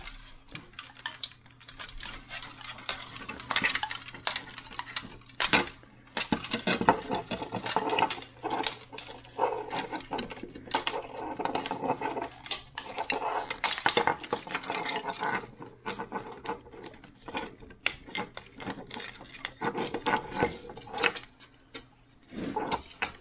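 Hard 3D-printed plastic parts clicking, snapping and clattering as printed support material is broken and peeled away from them by hand, with a denser run of crackling snaps for several seconds in the middle.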